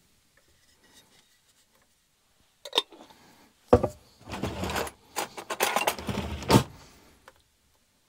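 Kitchen handling sounds as tomato sauce is put on a pizza crust on a wooden board and spread with a spoon: a click, then a sharp knock, then two stretches of noisy scraping and squishing.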